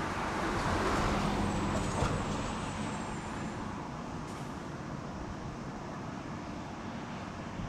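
Steady vehicle noise that swells and fades over the first few seconds, with a faint hum under it, then settles to an even rumble.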